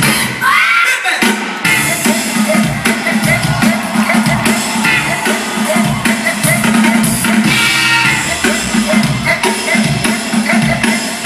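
Live drum kit played hard over an arena PA, with a steady kick-drum beat under the cymbals and snare.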